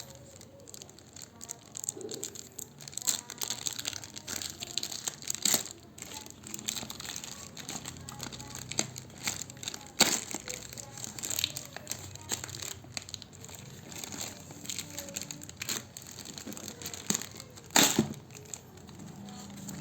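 Plastic wrapping and box packaging of a smartphone being crinkled and torn open by hand. Irregular crackling and rustling throughout, with sharp clicks and knocks, the loudest about ten seconds in and near the end.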